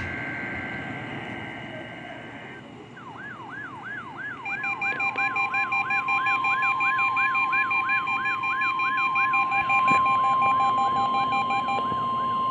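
NOAA Weather Radio alert signals. For the first two and a half seconds the two-tone SAME digital data burst is heard. Then an alarm siren rises in repeated whoops about twice a second, joined about four and a half seconds in by the steady 1050 Hz warning alarm tone and a rapid pulsing beep that stops shortly before the end.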